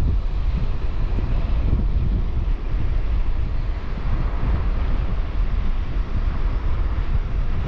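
Strong wind buffeting the microphone: a loud, continuous low rumble that flutters with the gusts.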